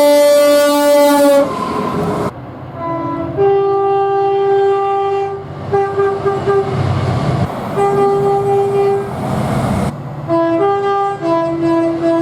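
Two-tone train horns sounded one after another. A long horn note ends about a second and a half in. After an abrupt cut come several sequences of short and long notes alternating between two pitches, over the low rumble of a passing train.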